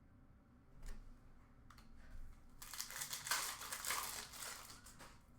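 Plastic packaging crinkling as trading cards are handled, a rustle of about two seconds starting past the middle, after a light tap about a second in.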